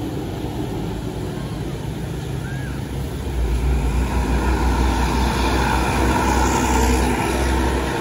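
Tour bus passing on the road, its engine rumble and tyre noise swelling strongly about three seconds in.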